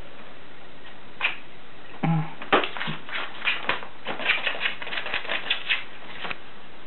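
A quick run of sharp, dry taps and clicks on a stiff paper birthday card, several a second, as a meerkat scrabbles at the card. One click comes about a second in, and the run starts about two and a half seconds in and stops near the end.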